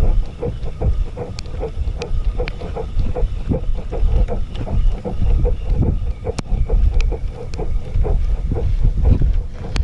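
Wind buffeting the microphone in a heavy low rumble, with a rhythmic pulsing about three to four times a second and a few sharp clicks.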